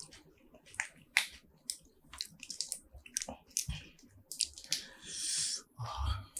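Close-miked eating of spicy seafood: wet chewing and smacking with many sharp, irregular clicks. There is a longer wet, noisy stretch about five seconds in and a soft low thump near the end.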